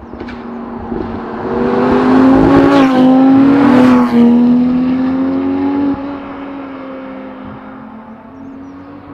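Supercharged Audi R8 V10 driving past at speed: its engine note builds as the car approaches, is loudest for a few seconds, then drops off suddenly about six seconds in and fades as the car moves away.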